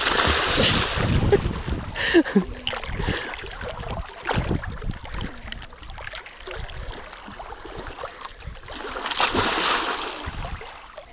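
Water splashing and sloshing as people bathe in a shallow river, with wind rumbling on the microphone. The splashing swells at the start and again near the end.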